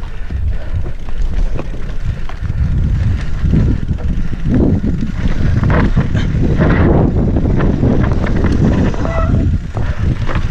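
Mountain bike descending a dry, rocky dirt trail: knobby tyres rumbling over loose dirt and stones and the bike rattling over bumps, under heavy wind buffeting on the microphone. A brief squeak sounds about nine seconds in.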